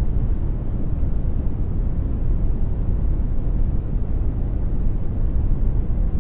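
Generated brown noise: a steady, even rumble, heaviest in the low range and falling away toward the highs, with no changes.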